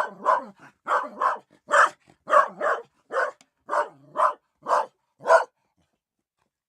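Dog barking: about a dozen short barks, many in quick pairs, stopping about five and a half seconds in.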